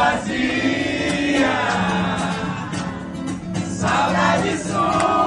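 Live acoustic guitar accompanying a man singing long held notes, with other voices singing along.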